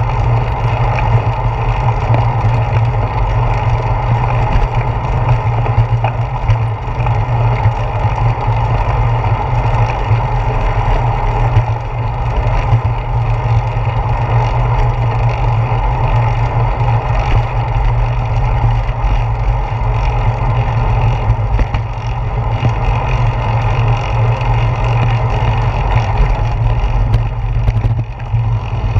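Steady wind rush and road rumble picked up by a handlebar-mounted GoPro Hero 4 on a moving bicycle, a constant low rumble that dips briefly near the end.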